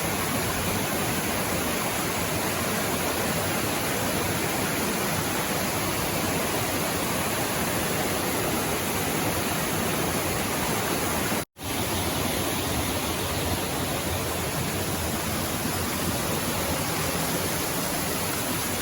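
Steady rushing of a waterfall, a constant even roar of falling water, broken by a brief dropout about eleven seconds in.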